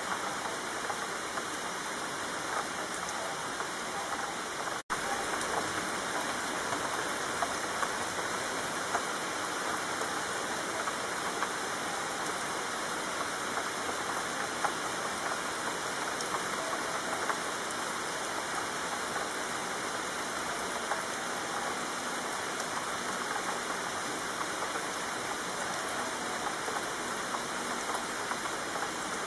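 Steady, heavy rainfall, a dense even hiss of drops with no let-up. It cuts out completely for an instant about five seconds in.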